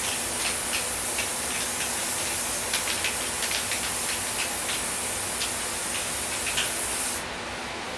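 Aerosol can of spray adhesive hissing steadily as it is sprayed onto a board, with a few faint ticks, cutting off about seven seconds in.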